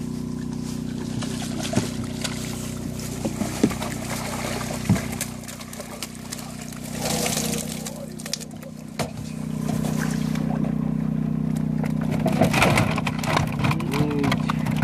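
Live carp thrashing and splashing in a landing net and plastic crate, with water sloshing; the flapping grows busy in the last few seconds. Under it runs a steady motor hum.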